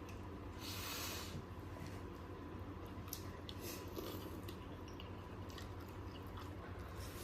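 Quiet sounds of someone eating dumplings: a short breathy noise about a second in, then faint chewing with small scattered clicks.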